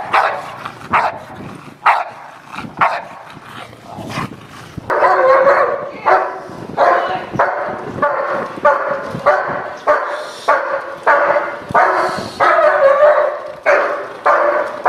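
Dogs barking at a protection-training decoy. First a large mastiff-type dog gives sharp single barks about once a second. After about five seconds a German Shepherd barks steadily at about two barks a second.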